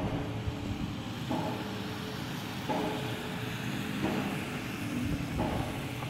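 Pile driver at a railroad bridge construction site hammering a pile, heard at a distance: regular strikes about every 1.35 seconds, five in all, each followed by a ringing tone, over a steady low rumble.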